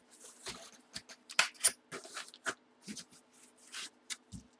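Trading cards and packaging handled by hand: an irregular run of short rustles, scrapes and clicks, the sharpest a little after a second in.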